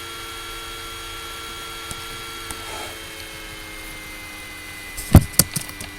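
Laptop cooling fan running with a steady whine of several tones, which shift slightly in pitch about halfway through. Near the end, a quick cluster of three or four sharp clicks.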